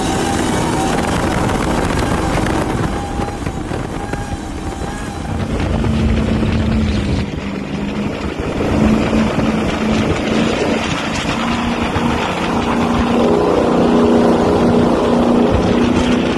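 Cigarette go-fast powerboat engines running hard at speed, with wind and water rush. Partway through the sound shifts to a second boat's steady engine drone, which grows a little louder near the end.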